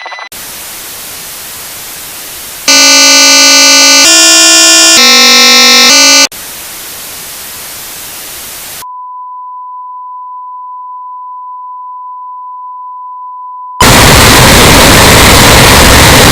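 Broadcast signal breaking down: hissing static, then a loud, harsh chord of electronic tones that jumps in pitch several times for about three and a half seconds, then static again. A single steady test tone follows for about five seconds, and loud static cuts in near the end.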